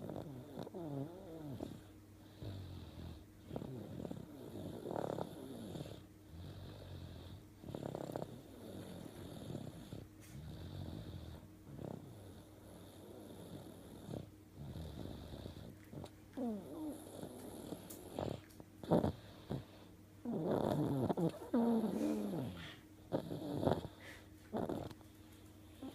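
A three-year-old child snoring in sleep, rough snoring breaths repeating every couple of seconds and growing louder in the second half.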